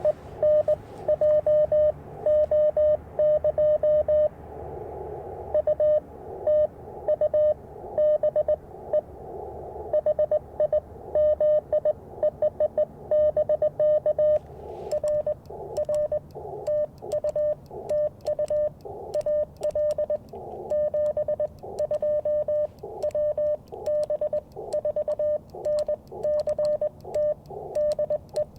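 Morse code (CW) tones from an Icom IC-705 transceiver keyed on and off in dots and dashes over band noise: a contact being exchanged on the air. From about halfway on, the code comes with sharp clicking from the twin-paddle key as the operator sends.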